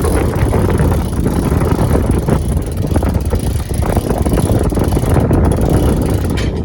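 Wind buffeting the microphone aboard a sailing catamaran underway in a beam wind of about 15 knots, a loud, steady rumbling rush.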